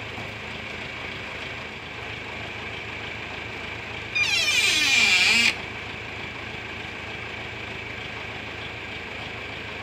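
Tractor engine idling steadily with a thin high whine. About four seconds in, a loud high-pitched wavering squeal lasts about a second and a half, then cuts off.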